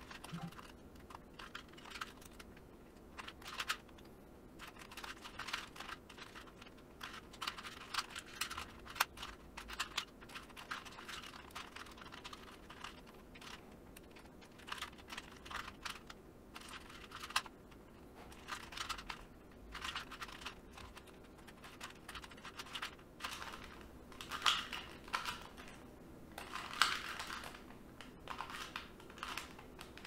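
A 2x2 Rubik's cube being turned by hand, its plastic layers clicking in uneven runs of quick turns with short pauses between them.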